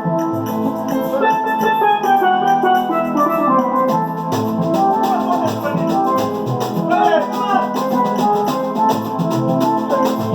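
Music with a drum beat and a melodic line, with a run of falling notes between about one and four seconds in.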